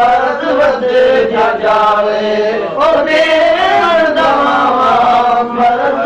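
A man sings a Punjabi Sufi devotional song, holding long, wavering melodic notes with no clear words.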